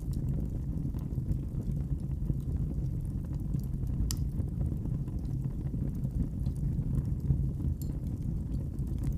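Wood fire in a fireplace burning with a steady low rumble and scattered sharp crackles and pops, one louder pop about four seconds in.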